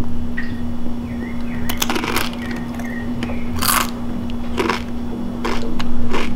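A corn tortilla chip being chewed slowly with the mouth closed: scattered short crunches, the loudest about three and a half seconds in, over a steady low hum.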